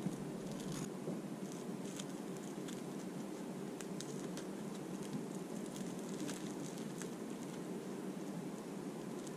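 Table knife spreading Marmite on bread: faint, scattered scratchy scrapes and small clicks over a steady background hum of the room.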